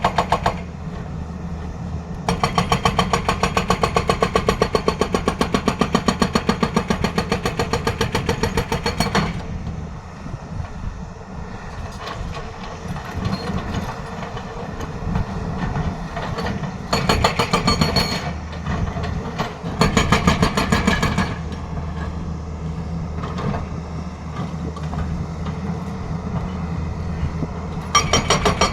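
Tata Hitachi excavator's hydraulic breaker hammering in bursts of rapid, even blows: one long burst of several seconds, then shorter ones later. The excavator's diesel engine runs steadily underneath and between bursts.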